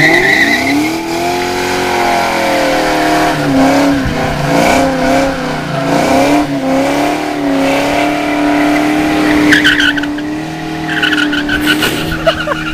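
2004 Ford Mustang GT's 4.6-litre V8, breathing through an off-road X-pipe and Flowmaster mufflers, revving up sharply and held high during a burnout, the revs wavering as the rear tyres spin. A tyre squeal rises over the engine near the end.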